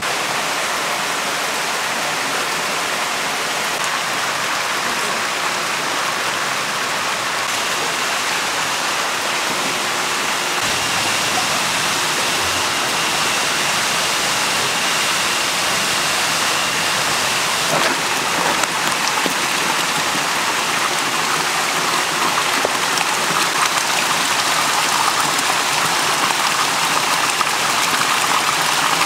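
Steady rushing and splashing of water in indoor eel-farm tanks.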